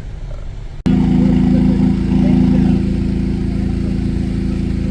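Low rumble of a moving vehicle, then, after an abrupt cut about a second in, a loud, steady engine drone holding one pitch.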